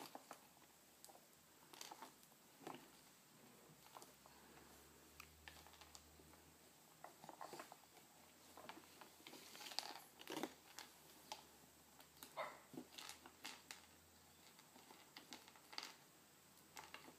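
Faint, scattered small taps and scratches of a baby's hands patting and scraping a plastic high-chair tray while picking at puffs.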